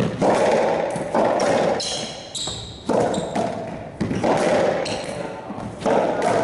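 Racquetball rally in an enclosed court: the hollow rubber ball is struck by racquets and smacks off the walls, giving sharp impacts every second or two, each with a booming echo. A few high sneaker squeaks on the court floor come about midway.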